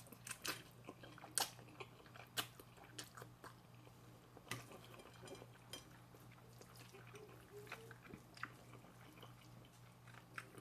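Faint chewing and wet mouth clicks of a person eating noodles, over a steady low hum.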